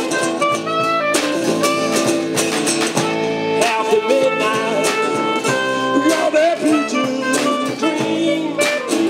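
Live clarinet playing a jazzy melody, some notes bending in pitch, over a strummed acoustic guitar.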